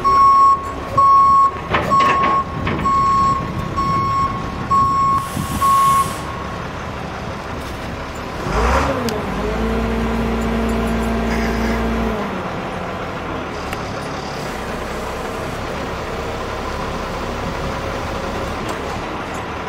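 Roll-off bin truck's reversing alarm beeping about twice a second for the first six seconds. After a short hiss of air, the diesel engine speeds up with a steady hum for about three seconds, then settles back to running steadily.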